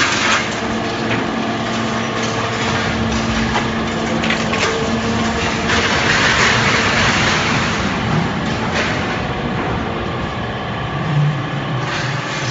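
Y81F-4000 hydraulic scrap metal baler running, its pump humming steadily while scrap metal crackles and crunches under the press, with a louder surge of crushing about halfway through.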